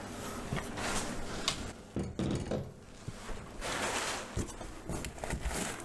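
Brown kraft packing paper rustling and crinkling in several bursts as items are dug out of a cardboard shipping box, with a few light knocks and clicks of things being handled.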